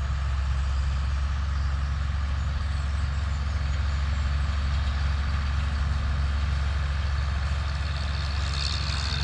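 Engine idling steadily: a low, even hum with a faint regular pulse.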